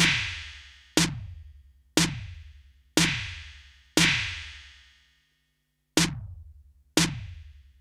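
A soloed drum-machine snare from Native Instruments Maschine hits about once a second, each hit followed by a reverb tail. The tail changes from hit to hit as the reverb send level is automated, with a couple of hits ringing out longer and brighter. One beat is missing about five seconds in.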